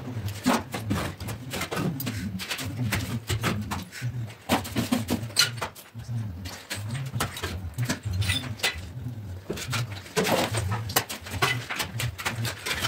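Irregular sharp knocks, taps and scrapes of a hammer and a steel mason's trowel against brick and mortar, over a low, repeating pulsing sound about once a second.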